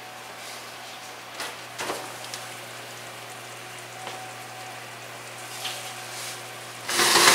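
Oven door opened with a few light knocks and clicks, then near the end the metal oven rack holding the roasting pan pulled out along its rails with a loud scraping.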